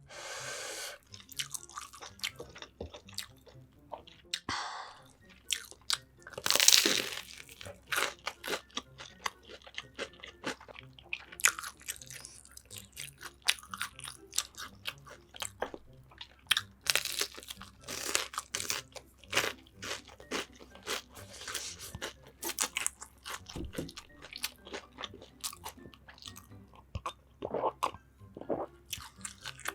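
Close-miked eating: crisp fried food being bitten and crunched, with steady chewing and a few louder bites.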